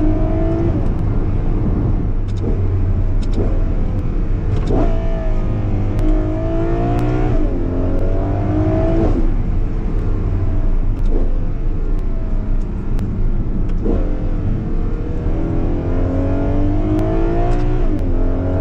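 Ferrari 12Cilindri's naturally aspirated 6.5-litre V12 accelerating hard. Its pitch climbs and then drops sharply several times as the dual-clutch gearbox shifts up.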